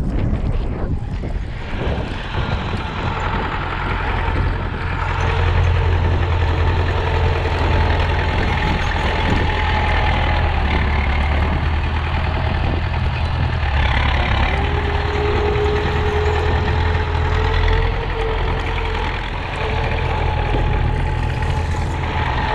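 Belarus MTS-50 tractor's four-cylinder diesel engine running steadily under load as its front snow blade pushes snow.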